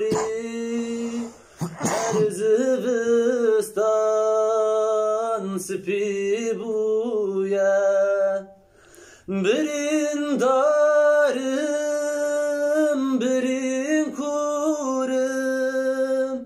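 A man singing unaccompanied, holding long drawn-out notes with ornamented turns between them, with two short pauses, one near the start and one about halfway.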